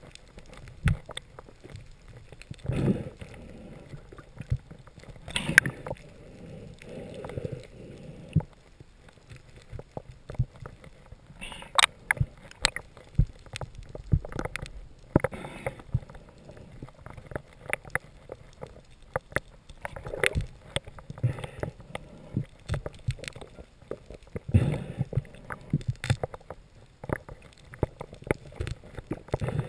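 Underwater sound picked up through a waterproof camera housing: many scattered sharp clicks and knocks, with a few short swells of water noise.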